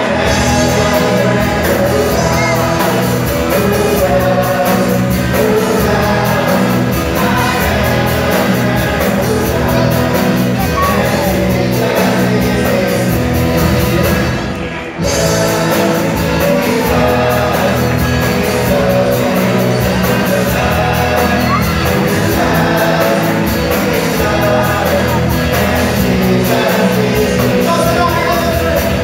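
Live band of electric guitars, drums and keyboard playing an upbeat worship song, with a group singing along. The sound dips briefly near the middle, then the music carries on.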